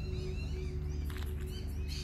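Background music with steady held notes, with many short repeated bird chirps over it.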